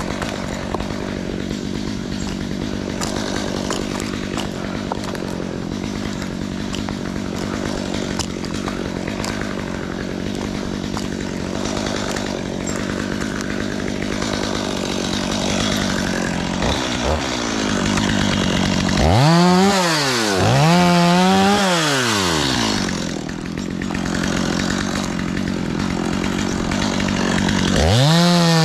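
Chainsaw idling steadily, then revved up twice in quick succession about two-thirds of the way through, the pitch rising and falling each time, and revved up again and held near the end.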